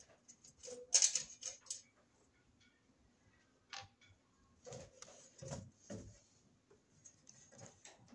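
Scattered clicks, taps and light scrapes of hands handling an open breaker panel, loudest about a second in.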